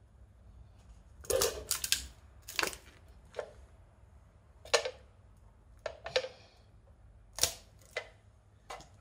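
A steel food tin being crushed under a wooden-soled clog on concrete: about a dozen sharp crunches and clanks of buckling metal, irregularly spaced, starting about a second in.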